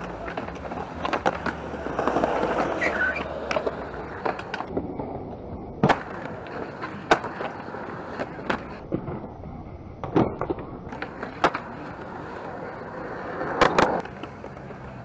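Skateboards on concrete: wheels rolling and grinding along, with sharp wooden clacks of boards popping and landing about half a dozen times, the loudest run of rolling near the end.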